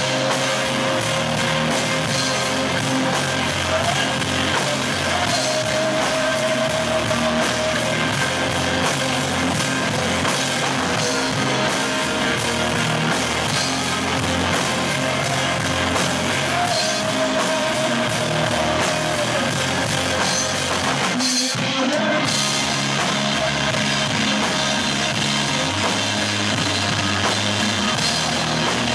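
Live rock band playing: a male voice singing over electric guitar and a drum kit. Everything drops out for a moment about 21 seconds in, then the band comes back in.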